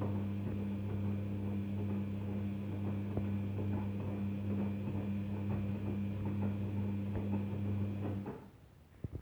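Daewoo DWD-FT1013 washing machine's drum motor running through a Cotton 40°C wash, a steady hum with light irregular ticks, cutting off suddenly about eight seconds in.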